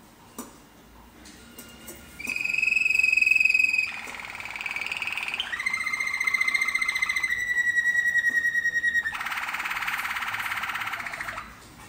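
Domestic canary singing a song of rapid, trilled rolls, each held for a second or two at a steady high pitch, some thinner and some fuller and warbling. The song starts about two seconds in and stops shortly before the end.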